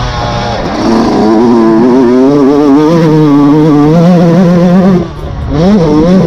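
Yamaha YZ125 two-stroke single-cylinder motocross engine, heard onboard: it accelerates hard and holds high revs, the throttle is chopped about five seconds in, and it revs up again near the end.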